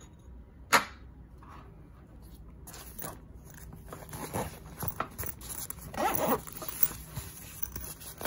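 Handling noise from a small padded nylon camera pouch: a sharp click about a second in, then fabric rustling and scraping that grows strongest near the middle and goes on to the end.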